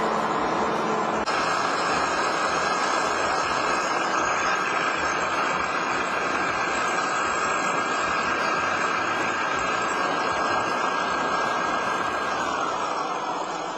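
REM VR12 grain vacuum running on its CAT Tier 4 diesel engine: a loud, steady rush of engine and air noise with a high, steady whine. Near the end the whine drops in pitch and the sound starts to fade.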